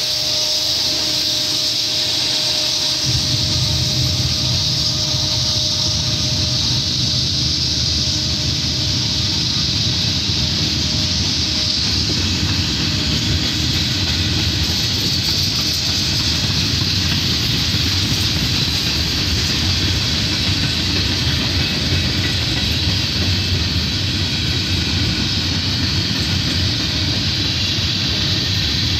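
Union Pacific freight train's covered hopper and tank cars rolling past: a steady rumble of steel wheels on rail with a high hiss over it. The low rumble grows louder about three seconds in.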